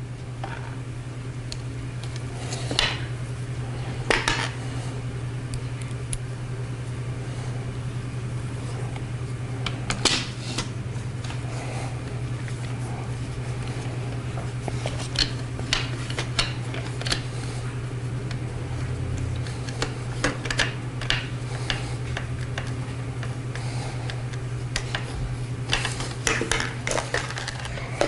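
Scattered clicks and knocks of hard plastic Nerf Rival Kronos blaster parts being handled and fitted together during reassembly, over a steady low hum.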